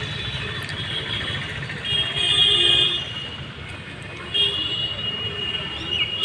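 Vehicle horns sound twice over a steady low traffic rumble: once about two seconds in for about a second, and again from about four and a half seconds.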